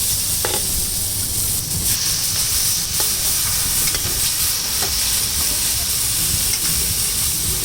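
Food sizzling in a hot pan as it is stir-fried, a steady hiss broken by a few sharp clicks.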